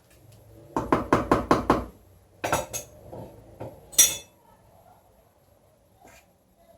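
A spoon stirring in a cooking pot and knocking against its sides: a quick run of six or seven knocks about a second in, two more a little later, then one sharp, bright clink about four seconds in, the loudest of them.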